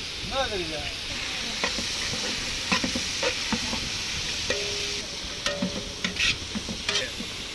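Sliced onions, green chillies, carrots and capsicum sizzling steadily as they fry in oil in a large metal pot. A metal ladle scrapes and clinks against the pot as the vegetables are stirred.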